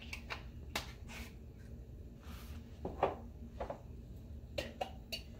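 Scattered light clicks and taps of spice jars and their lids being handled on a kitchen counter: a seasoning shaker's cap and a glass jar of pimento seeds.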